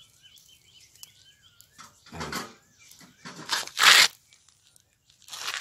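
Several short rustling, scraping noises from hands working dry soil and leaf litter around aloe vera offsets, the loudest about four seconds in. A bird's faint warbling call sounds in the first two seconds.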